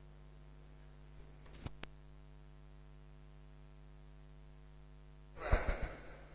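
A billiard shot: a rapid cluster of sharp clacks and knocks about five and a half seconds in, as the cue strikes the ball and the balls collide on the table. Two faint clicks come earlier, over a steady low hum of room tone.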